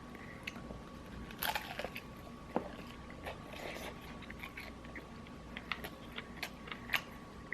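A crunchy bite into crispy Popeyes fried chicken about a second and a half in, followed by close-miked chewing with scattered small crunches and wet clicks.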